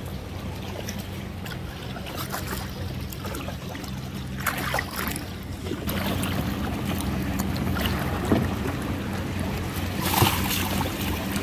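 Kayak paddling: the paddle splashes and water laps against the hull, over a steady low rumble of wind on the microphone. The clearest splashes come about four and a half seconds in and again near the end.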